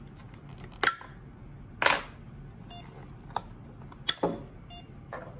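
AA NiMH batteries being popped out of the spring-loaded slots of an ISDT N8 smart charger: about five sharp plastic clicks, the loudest about two seconds in. Two faint short electronic beeps from the charger fall between them.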